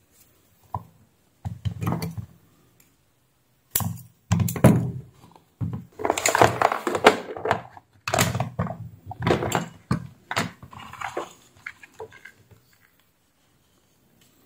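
Irregular knocks, rattles and rustles from a clear plastic compartment box of assorted heat-shrink tubing being handled and searched through on a workbench. The busiest handling comes through the middle few seconds and dies away near the end.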